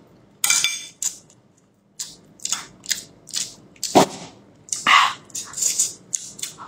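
Close-up eating sounds: a person biting, tearing and chewing a large piece of braised fatty meat, in irregular short smacks and crunches, with a brief pause about a second in.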